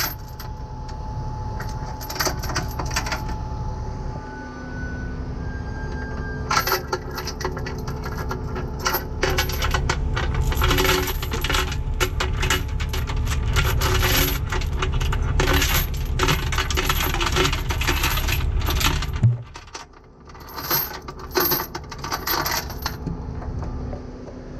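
Heavy steel tow chains and hooks clinking and rattling in runs as they are handled and stowed on a tow truck's deck. A low steady rumble runs underneath and drops away about three-quarters of the way through.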